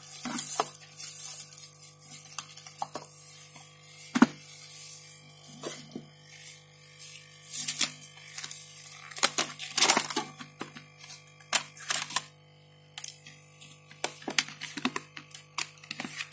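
Irregular clicks, taps and scrapes of tools and fingers working the plastic casing of a slap fingerprint scanner while prying it open, the sharpest clicks about 4 s in and between about 8 and 12 s in, over a steady electrical hum.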